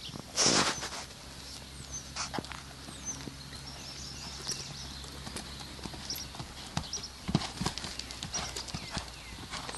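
Horse cantering on a dirt arena, its hoofbeats thudding louder and closer about seven to eight seconds in. About half a second in, a short loud rush of noise is the loudest sound.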